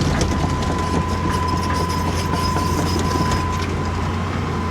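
Excavator's engine running steadily under a constant low hum, with a steady high whine that fades near the end and scattered metallic clicks.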